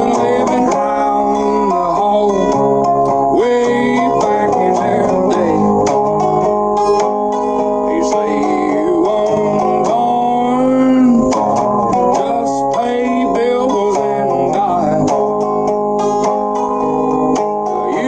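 Background country music: an instrumental stretch of plucked string instruments with sliding notes, no singing.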